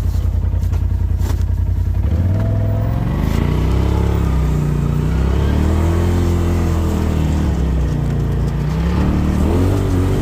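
Side-by-side UTV engine running, at first a low, even pulsing, then from about two seconds in rising and falling in pitch again and again as the machine speeds up and eases off.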